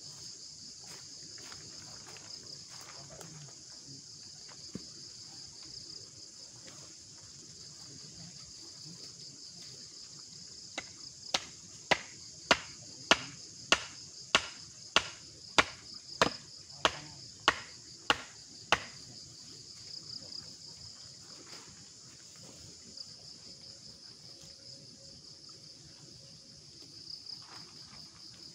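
Crickets chirping in a steady chorus. About a third of the way in, a run of about thirteen sharp knocks, evenly spaced a little under two a second, lasts some eight seconds.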